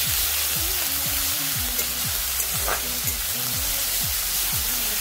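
Onion paste with ground green chillies sizzling in hot mustard oil in a metal kadai, stirred and scraped with a flat metal spatula. Background music plays underneath.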